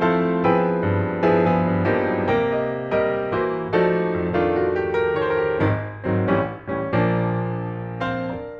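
Background music on piano: a gentle run of struck notes with a bass line, ending on a final chord near the end that starts to fade out.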